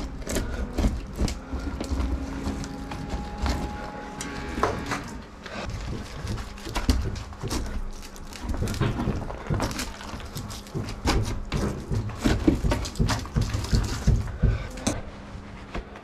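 Irregular knocks, scrapes and crunches of tools working at a broken-open hole in a plaster ceiling, with a brief faint steady hum a couple of seconds in.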